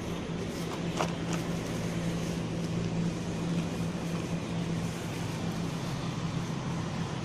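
A steady, low engine hum under general outdoor noise, like a motor vehicle idling. Two brief clicks come about a second in.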